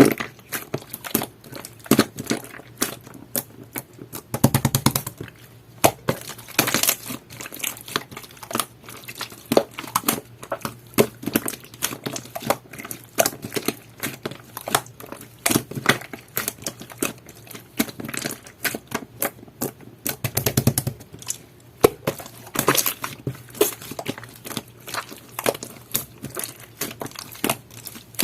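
Jelly-textured slime being squished and pressed by hand: a dense, irregular run of small clicks and pops, with a few louder stretches.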